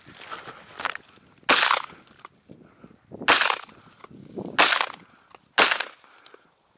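Shotgun fired four times in quick succession at a running hare, the shots about one to two seconds apart, with a fifth shot coming right at the very end.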